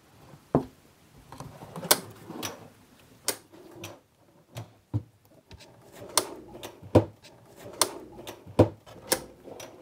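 Wooden drawers being hung into a cabinet on full-extension drawer slides and pushed in: a string of sharp clicks and knocks as the slides engage and the drawers close, with short stretches of the runners rolling in between.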